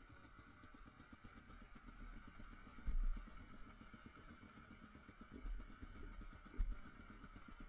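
Enduro dirt bikes idling at a standstill, heard faintly and muffled, with a few short low thumps about three, five and a half and six and a half seconds in.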